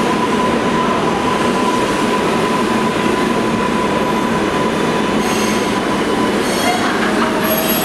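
R142A subway train pulling into the station, its cars rolling past with a loud, steady rumble and rattle and a steady whine. Several short, high-pitched squeals come in the last few seconds.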